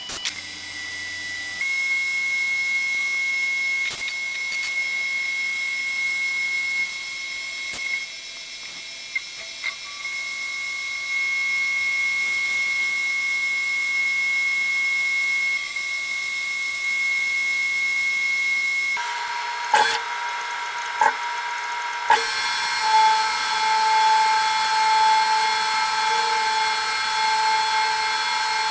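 CNC milling machine running a part program: its motors and cutting give a steady whine whose pitch shifts in steps every few seconds as the moves change. A few sharp clicks come about two-thirds of the way in, after which the tones are louder.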